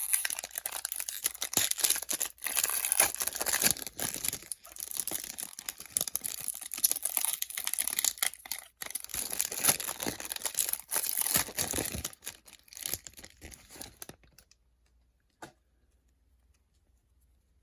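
Wrapper of a Donruss Optic basketball card pack being torn open and crinkled, a dense crackling that stops about 14 seconds in, with one short click a second or so later.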